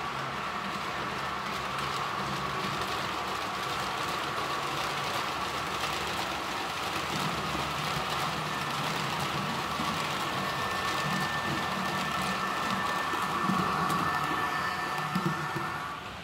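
H0-scale model trains running on the layout's track: a steady rolling rattle and motor hum that grows slightly louder as a long double-deck model train passes close by. A thin, steady motor whine joins in partway through.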